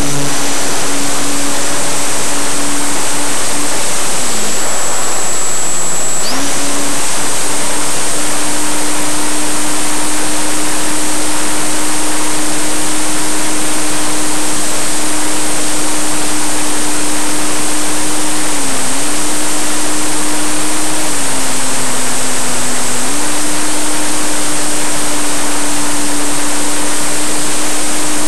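Electric motor and propeller of a Parkzone P-51 RC model plane heard from on board in flight: a steady hum under heavy wind rush on the microphone. The hum's pitch dips a few times: early on for a couple of seconds, briefly past the middle, and again lower for a couple of seconds later.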